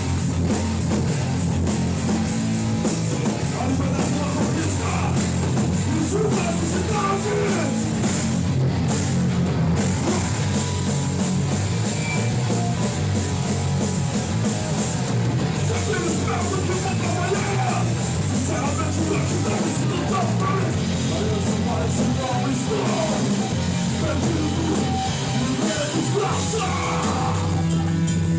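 Hardcore punk band playing live: loud, dense, unbroken distorted rock music.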